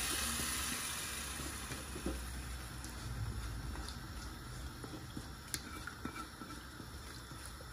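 Chicken curry sizzling in hot butter in a clay handi pot on the flame, a soft steady crackle that gradually quietens, with a few faint clicks.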